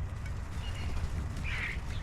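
A bird's harsh, rasping call, once about one and a half seconds in, over a steady low rumble.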